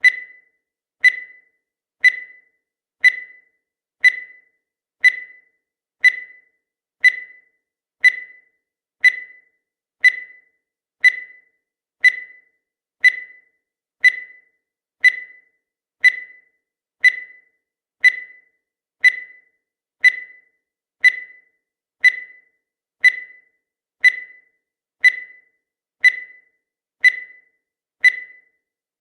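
Countdown timer sound effect: a short, high electronic blip once every second, each dying away quickly.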